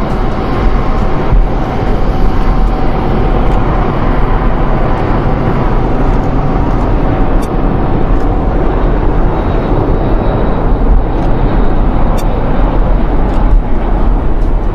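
Airbus A319 jet on final approach and landing: a loud, steady rush of engine noise over a low rumble, with a faint whine that fades a few seconds in.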